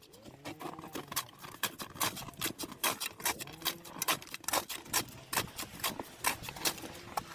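Snow being shovelled off a patio: a shovel scraping and knocking, with many quick, irregular clacks and a few short squeaks that rise and fall in pitch.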